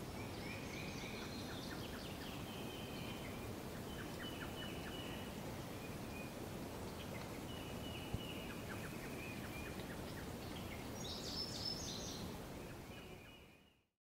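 Nature ambience recording of birds calling in short, repeated chirping phrases over a steady outdoor hiss. It fades in at the start and out at the end.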